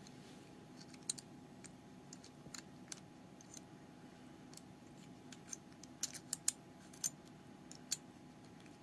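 Small metal parts of a miniature 1:3 scale 1911 pistol keychain clicking and scraping as it is handled and reassembled, the slide and spring being worked onto the frame. Scattered light clicks, with a quick run of sharper clicks about six to eight seconds in.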